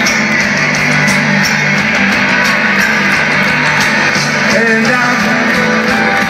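Rock band playing live through a large outdoor PA, heard from the crowd: an instrumental stretch of loud, steady electric guitars with no vocals.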